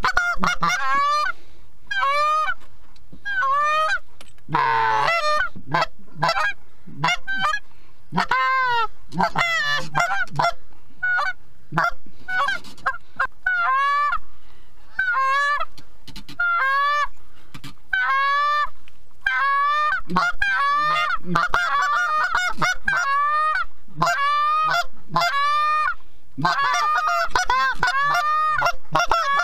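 Goose calls blown in quick, overlapping strings of short honks, calling to a flock of geese in flight. One longer, rougher call sounds about four seconds in.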